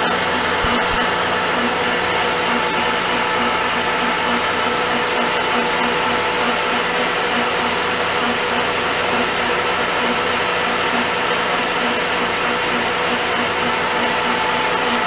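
Pratt & Whitney Model B 12 x 30 engine lathe running: a loud, steady mechanical whir with a faint whine, pulsing regularly a few times a second.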